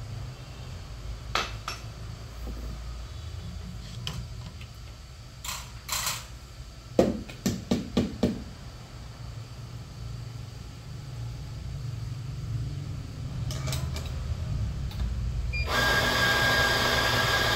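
Clicks and a quick run of five sharp knocks about seven seconds in, metal handling at an espresso setup, over a low steady hum. Near the end an electric coffee grinder starts suddenly and runs with a steady whir and a high whine.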